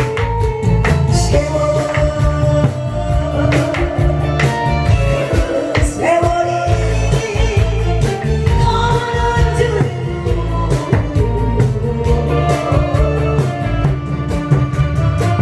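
Korean trot song with a singing voice over a band backing, with a steady drum beat.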